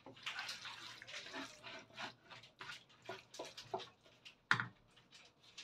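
Wooden spoon stirring tagliatelle in a creamy spinach sauce in a frying pan: faint, short, irregular wet stirring strokes, with a sharper knock about four and a half seconds in.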